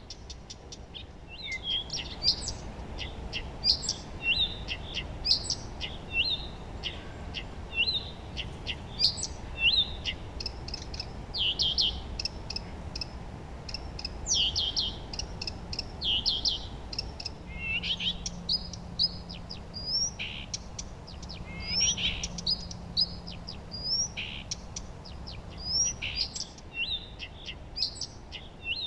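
Several songbirds chirping and singing at once, with many short overlapping calls and trills, over a faint steady background hiss.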